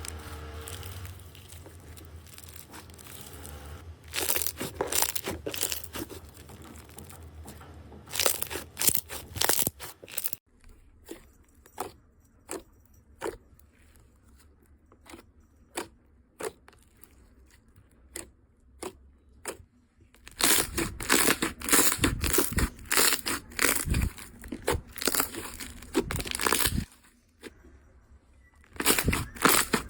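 Slime being squeezed and pulled by hand, giving runs of sharp crackling and crunching. About ten seconds in it changes to sparse single pops and snaps, then dense crackling returns at about twenty seconds.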